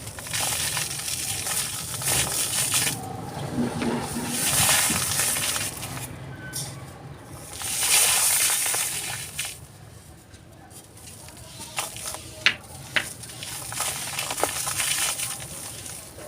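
Dry, brittle texture material being crumbled by hand: spells of crunching and crumbling with short pauses, loudest about halfway through, and a few sharp cracks toward the end.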